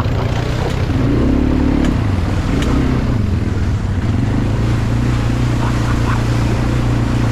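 Quad bike (ATV) engine running. It revs up and back down briefly about a second in, then runs steadily.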